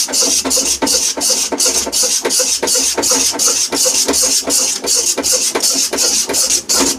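Metal spatula scraping fast and steadily around a metal kadhai, about four or five strokes a second, stirring a thick gram-flour, ghee and sugar batter as it roasts for Mysore pak.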